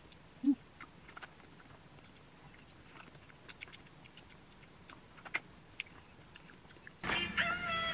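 Faint, scattered small clicks and taps in a quiet room, one a little louder about half a second in. About seven seconds in, music with steady held notes starts up.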